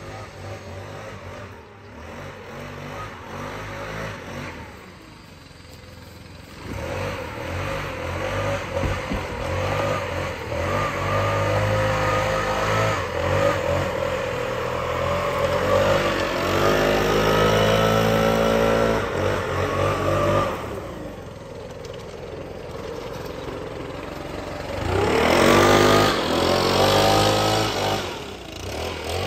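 Gas-powered backpack leaf blower revving up and down several times over the steady running of a leaf vacuum's engine. It is quieter about five seconds in and loudest near the end.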